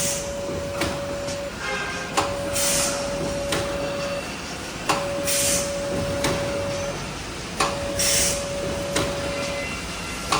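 Automatic form-fill-seal liquid packing machine running through its cycle at about 21 strokes a minute. Each stroke is a sharp click, then a steady hum tone for about two seconds and a short hiss, repeating every two and a half to three seconds.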